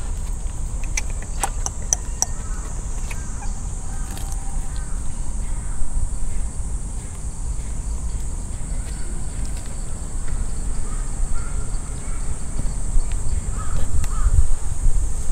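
Outdoor park ambience: a steady high insect drone over a low wind rumble on the microphone that grows louder near the end, with a few distant crow caws. A handful of sharp ticks come about a second or two in.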